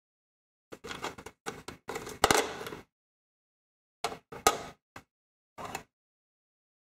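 Handling noise of a BN-1-003 plastic signal lantern: the case and its folding metal wire carrying handle clatter and click as it is turned over in the hands. The noise comes in two bouts, each with one sharp snap, the first a little past two seconds in and the second about four and a half seconds in.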